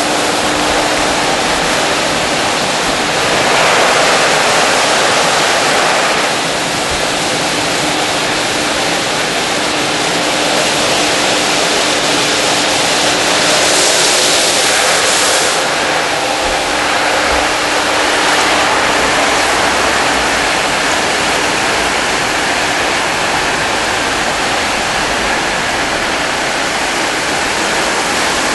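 Automatic rollover car wash running: a steady rushing hiss of water spray that grows louder twice for a couple of seconds, with a faint steady hum that stops about two-thirds of the way through.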